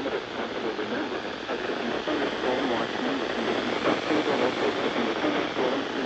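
Weather-band radio's speaker carrying a weather broadcast under a steady static hiss: a voice reading that is hard to make out through the noise.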